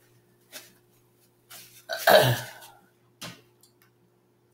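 A woman coughs once, loudly, about two seconds in while eating, with soft mouth and handling clicks before and after.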